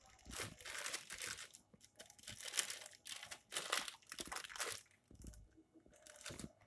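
Baking paper crinkling in several bursts as it is lifted and peeled away from a bar of peanut brittle.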